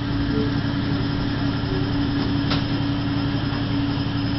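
Steady mechanical hum of intensive-care medical equipment, holding one constant low tone throughout.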